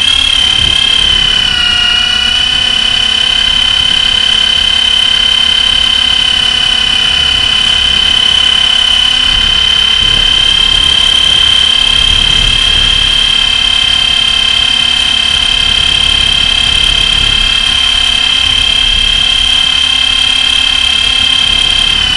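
Electric Blade SR radio-controlled helicopter in flight: a steady high-pitched whine from its motor and rotor, rising slightly in the first second and then holding. Wind rumbles on the microphone underneath.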